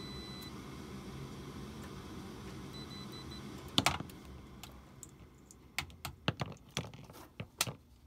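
Gas furnace running with a steady low hum from the draft inducer while a multimeter's continuity beep sounds briefly, showing the pressure switch has closed. Just before four seconds a loud sharp click, then a series of clicks and knocks as the meter and test leads are handled.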